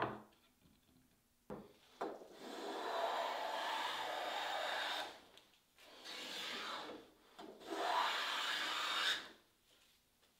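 A knock, then a long metal hand plane taking three shaving strokes along the edge of a black walnut board. The first stroke is long and steady, the second shorter and quieter, and the third about a second and a half long.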